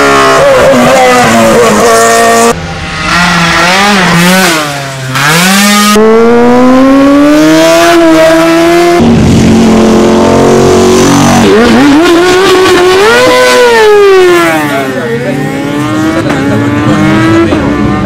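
Racing motorcycle engines at full throttle as several bikes pass close by in quick succession, among them a sidecar outfit with a Yamaha 1000 engine and a Ducati 1000. The engine pitch climbs hard, drops at each gear change or as the rider backs off for a bend, then climbs again, with abrupt jumps where one bike's sound gives way to the next.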